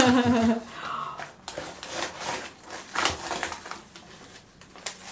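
Paper packing material rustling and crinkling as a plant is unwrapped from a cardboard box, with a few brief knocks among it.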